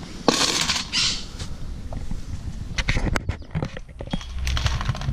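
Dog eating dry kibble from a stainless steel bowl. A scraping rattle sounds about a third of a second in as the bowl is put down on the tile, then irregular crunching and clinks of food against the metal.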